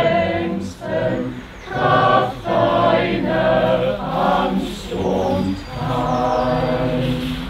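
Choir singing a cappella: held chords in short phrases with brief breaths between them, a phrase closing near the end.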